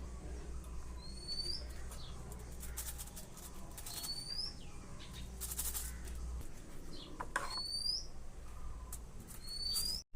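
A bird calling a short rising chirp, repeated about four times at intervals of a few seconds, over light knocks and rustles of handling.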